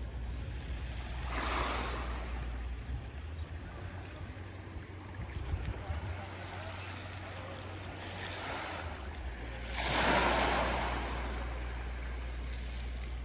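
Small waves lapping and washing onto a pebble beach, in several swells, the loudest about ten seconds in, over a steady low rumble of wind on the microphone.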